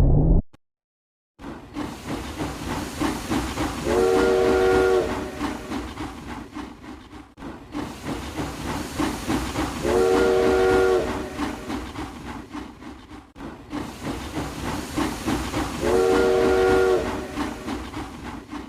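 Steam locomotive chugging, its whistle blowing three times, about six seconds apart, each blast about a second long: a looped train sound effect.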